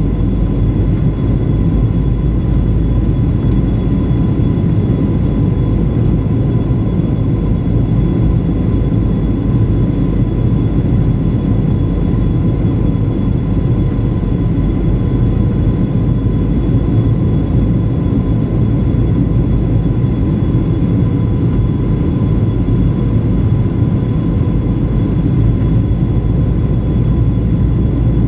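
Steady cabin noise inside a Boeing 737-900 in flight: a low rush of air and the hum of its two CFM56-7B engines, with a few faint steady whines on top.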